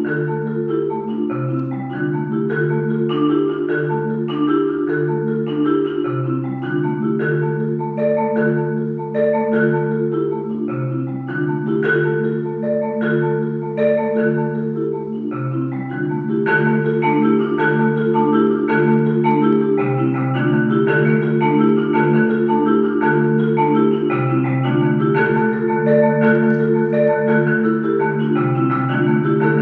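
Korogi marimba played with four mallets: a chordal passage of held low chords that change every second or two, under a higher repeating line of notes. It grows a little louder about halfway through.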